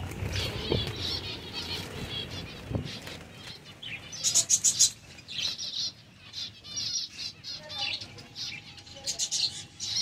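A flock of zebra finches chirping: many short, high calls in quick runs, busiest from about four seconds in. Low rustling and a couple of knocks in the first three seconds.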